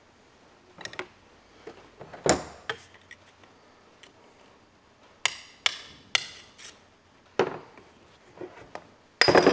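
Sharp metallic knocks and clinks of hand tools working on a disassembled alloy power steering pump with a steel end cap, with a spanner levering at the end cap and then a hammer tapping on it. The knocks come singly and irregularly, then four in quick succession, then a rapid burst of taps near the end.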